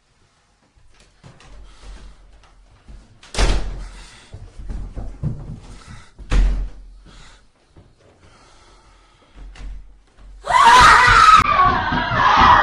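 Two heavy door slams, about three and a half and six and a half seconds in, echoing in a room, with smaller knocks between them. From about ten and a half seconds in comes a loud, wavering scream.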